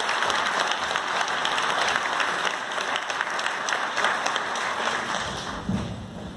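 Audience applauding: dense, steady clapping that thins out about five seconds in.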